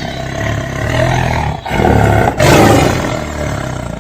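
Tiger roaring: two long, deep roars with a short break between them.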